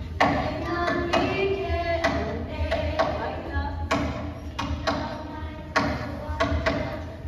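Singing accompanied by sharp percussion strikes falling about once a second, in a steady rhythm.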